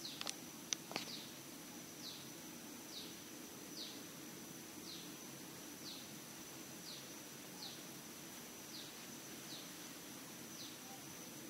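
A bird repeating a short falling chirp about once a second over a steady high insect whine, with a few sharp clicks in the first second.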